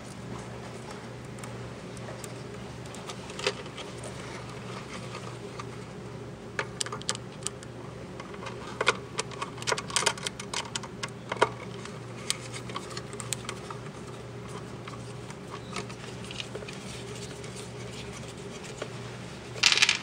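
Scattered small clicks and taps of a screwdriver and crimped wire terminals being worked onto a terminal strip in a metal switch box, most of them in the middle and a quick cluster near the end, over a steady low hum.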